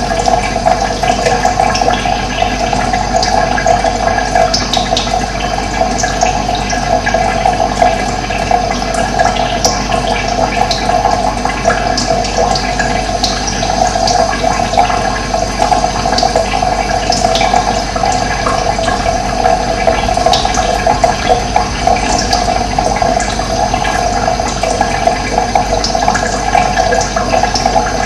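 Steady rushing of running water, with short bird chirps scattered over it.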